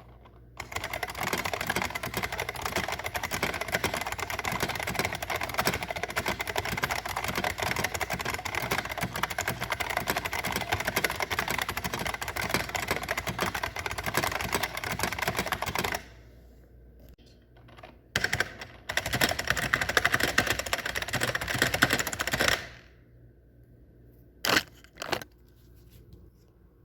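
1988 IBM Model M buckling-spring keyboard typed on at high speed: a fast, continuous clatter of keystrokes for about fifteen seconds. After a short pause with a few scattered presses, a second fast run of about four seconds follows, then two single keystrokes near the end.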